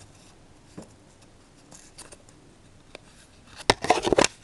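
A sheet of white paper being folded and handled by hand: faint rustles and ticks, then a louder burst of crinkling and crackling a little before the end.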